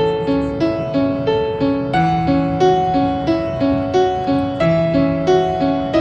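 Background piano music: a gentle, steady figure of evenly spaced notes, about three a second, over a low note that changes every couple of seconds.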